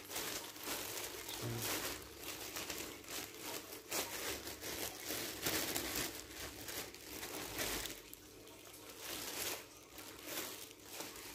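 Thin clear plastic packaging bag crinkling and rustling unevenly as hands handle it and pull a folded mesh landing net out of it.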